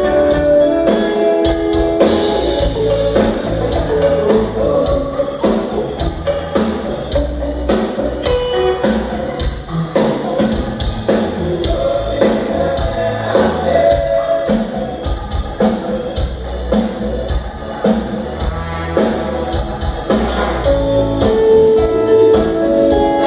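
Live band playing at sound check: a drum kit keeps a steady beat under instruments and singing.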